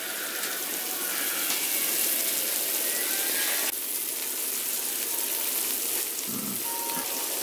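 Hot sauced chicken wings sizzling on a foil-lined baking tray just out of the oven: a steady hiss that eases a little about halfway through.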